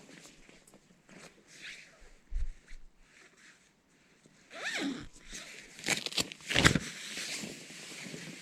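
A tent door zipper being unzipped, with the nylon tent fabric rustling and scraping as someone crawls out; the loudest zipping and rustling comes in the second half.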